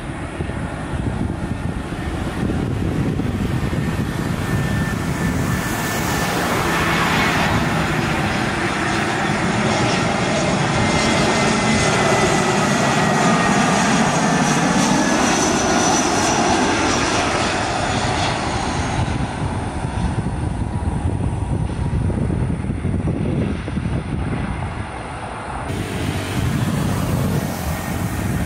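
Batik Air jet airliner's engines passing close by: the engine noise swells to a peak midway, with a whine that falls slowly in pitch as the aircraft goes past, then eases to a lower rumble.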